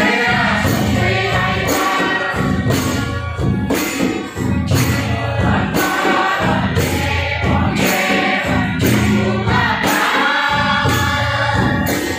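Bodo Bwisagu folk dance music: voices singing together over a harmonium, with a steady beat of drum and jingling percussion, played loud through stage speakers.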